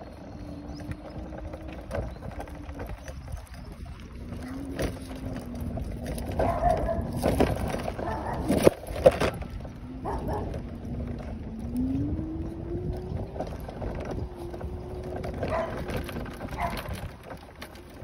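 A small motor humming at a steady pitch. It drops out briefly a couple of times, then rises in pitch about twelve seconds in and holds there, with scattered knocks and clatter over it.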